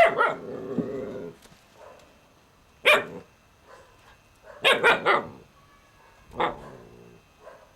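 Alaskan malamute puppy barking in short separate barks, with a quick run of three barks about five seconds in.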